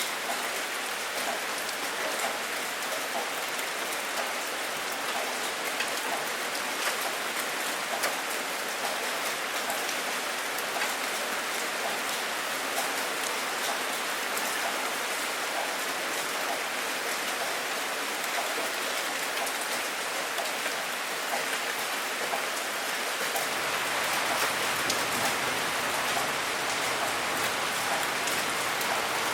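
Steady rain, a dense patter of drops on a surface, getting a little heavier near the end.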